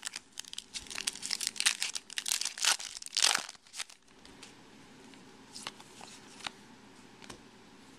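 Foil wrapper of a 2010 Topps Chrome baseball card pack crinkling and tearing as it is opened by hand, a dense run of crackles over about the first four seconds. After that come a few faint ticks as the cards are handled.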